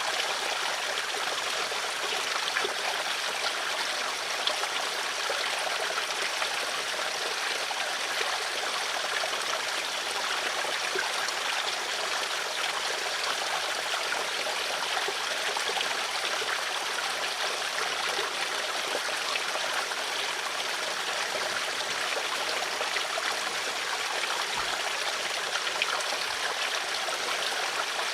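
Flowing water of a stream, running and trickling steadily.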